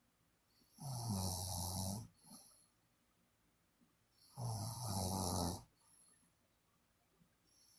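Snoring: two long snores about three and a half seconds apart, each a low buzzing rattle lasting just over a second, each followed by a brief faint sound.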